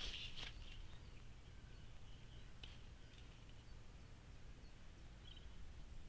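Faint outdoor background with a low steady rumble and a few brief, distant bird chirps near the start, a little under three seconds in, and again about five seconds in.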